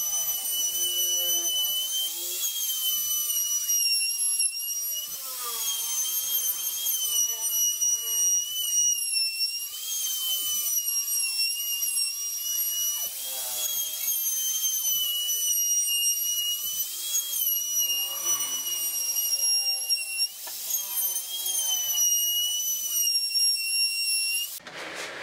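Compact electric trim router running and cutting along the edges of wooden bench slats: a steady high-pitched whine that dips and recovers slightly as the bit bites into the wood. It stops abruptly near the end.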